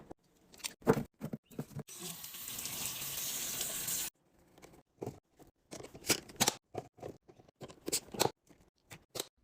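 Snacks and drinks being handled and set down while restocking: quick clicks, taps and crinkles of packaging and containers. About two seconds in, a steady rushing hiss runs for about two seconds and then cuts off suddenly.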